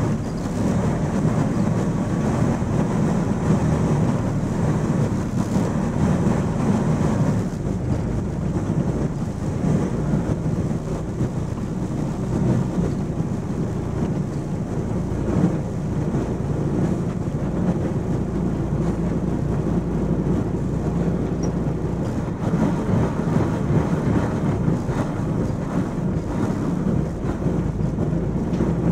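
MAN 16.370 HOCL coach on the move, heard from inside the passenger cabin: a steady low diesel engine drone mixed with road noise, easing slightly about seven seconds in.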